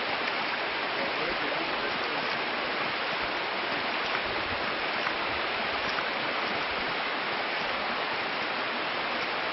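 Water splashing steadily as it gushes out of a hydraulic ram pump's waste valve while the pump runs.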